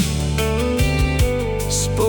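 Alternative rock music: guitars, bass and drums play between sung lines, with a held voice-like note.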